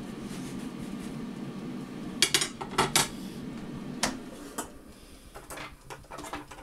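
A metal knife clattering down onto a glass chopping board, over the steady whir of an air fryer's fan. About four seconds in, the air fryer basket is pulled out with a clack, the fan noise drops away, and a few lighter clinks follow.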